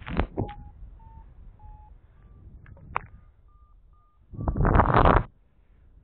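Paragliding variometer beeping in short, spaced tones that step up in pitch: its climb tone, sounding while the wing rises in lift. Near the end a loud rush of noise, about a second long, drowns it out.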